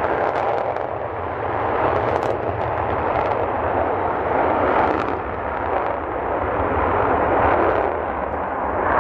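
F/A-18D Hornet's twin General Electric F404 turbofans at full afterburner during a takeoff and climb-out: a loud, continuous jet roar with a rumble and occasional crackle, swelling and easing a little as the jet goes by.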